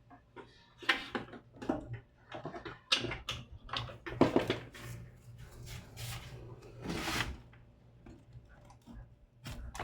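Irregular clicks, knocks and scrapes of a laptop and small tools being handled during repair, over a steady low hum.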